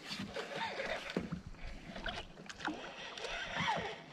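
Water splashing and sloshing around a kayak with scattered small knocks and clicks, while a hooked largemouth bass is fought and reeled in.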